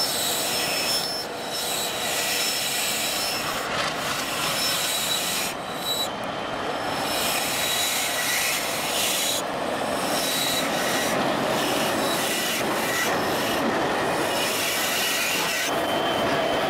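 Steel wheels of a slow-moving diesel-hauled train squealing and grinding against the rails: a continuous rasping noise with thin high squeals running through it.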